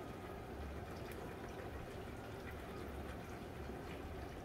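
Steady rain falling, an even hiss with scattered faint taps of drops.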